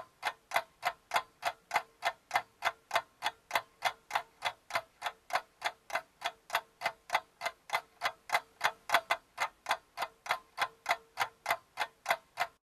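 Ticking clock, about four ticks a second, timing the recall while the words are written down; it stops abruptly near the end.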